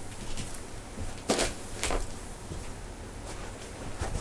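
Handling noise: a couple of short rustling knocks about a second and a half and two seconds in, over a low steady hum.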